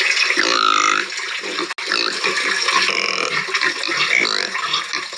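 Domestic pigs squealing and grunting in a continuous din, with short high squeals rising and falling in pitch; a brief break in the sound just under two seconds in.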